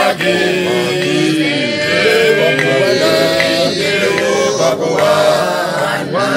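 A group of voices singing a Christian hymn in Otjiherero, several melodic lines together.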